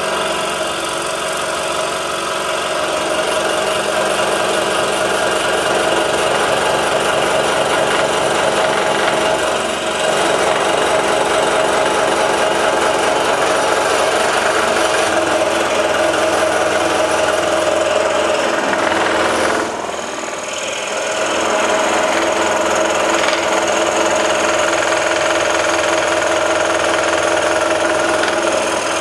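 Scroll saw running, its number 7 PS Wood Super Sharp blade cutting steadily through a wooden board along a curved interior line. The sound dips briefly about two-thirds of the way through, then carries on as before.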